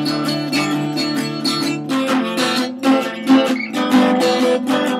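Acoustic guitar strummed in a steady rhythm, an instrumental passage between sung lines.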